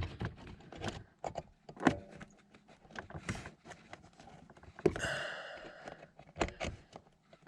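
Scattered clicks, taps and knocks of hands working a heater temperature control cable and its clip against the heater box under a car's dashboard, with a longer scraping rustle about five seconds in.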